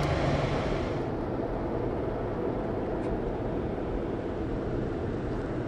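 McDonnell Douglas MD-81's rear-mounted Pratt & Whitney JT8D turbofans running at low power as the jet rolls by on the ground: a steady engine noise whose high hiss drops away about a second in as the engines pass.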